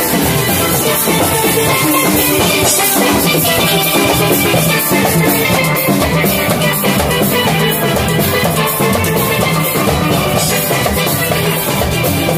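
Steel band playing live: many steel pans ringing out the tune over a steady drum kit beat.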